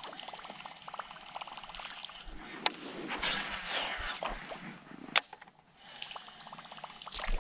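Fishing reel being cranked during a topwater retrieve, a fast run of fine ticks, with water trickling and lapping around the kayak. A couple of sharp single clicks stand out, one about a third of the way in and one about two-thirds in.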